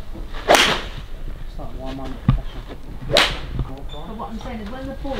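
Golf balls struck off a driving-range mat: two sharp cracks of club on ball, about two and a half seconds apart, and a third at the very end.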